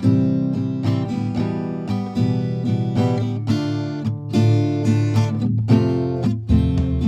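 Background music: strummed acoustic guitar playing a steady chord pattern.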